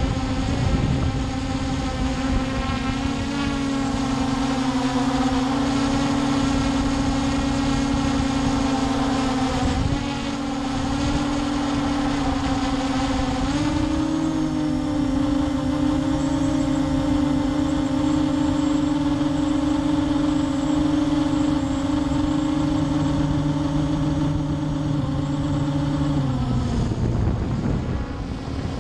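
Hubsan H501S quadcopter's brushless motors and propellers buzzing steadily, heard close up from the camera mounted on the drone. The pitch shifts slightly a few times and drops near the end.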